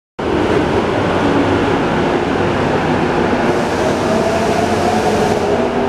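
Tozai Line subway train pulling out of the underground platform: steady rumble of the cars with an electric motor whine that climbs in pitch from about halfway as it speeds up.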